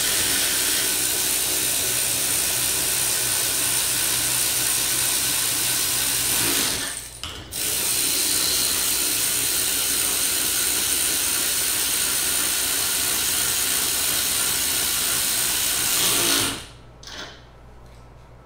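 AC Delco 12-volt 3/8-inch cordless ratchet with a brushed motor running steadily at full speed, spinning nuts down bolts. It pauses briefly about seven seconds in, runs again, and stops about two seconds before the end.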